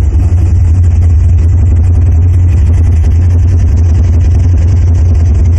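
Heavy, continuous deep bass rumble of a war-film soundtrack, engine-like vehicle noise, played back very loud through a home-theater array of eight 18-inch Stereo Integrity subwoofers.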